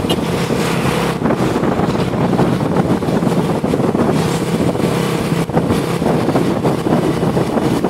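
Road traffic with trucks passing, a steady engine drone under heavy rushing noise, with wind buffeting the microphone.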